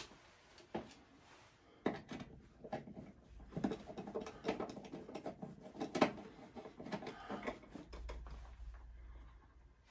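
Irregular clicks, knocks and metallic rattles of a home electrical service panel's metal cover and screws being handled and fastened. The sounds are sparse at first and busiest in the middle.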